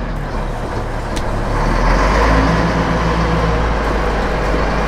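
The Mack diesel engine of a 1977 Mack CF-600 fire engine running under way as the truck drives off, heard from inside the cab with a strong low rumble.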